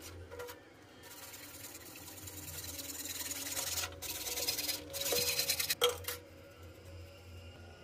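Hacksaw blade sawing through a CPVC pipe: a rasping hiss that starts about a second in, breaks off briefly near the middle and stops about six seconds in, with a sharp knock just before it ends.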